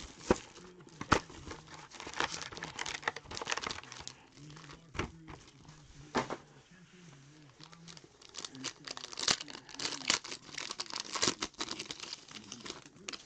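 Plastic shrink-wrap and a foil trading-card pack crinkling and tearing as a sealed card box and its pack are opened by hand: irregular sharp crackles, busiest near the end.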